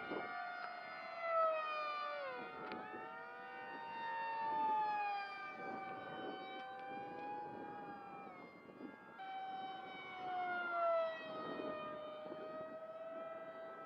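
Several FPV racing wings' electric motors and propellers whining in a layered, siren-like drone as they race around the course. They swell when one passes close, and the pitch drops as it goes by.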